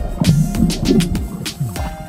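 Background music with a steady beat and low sliding notes.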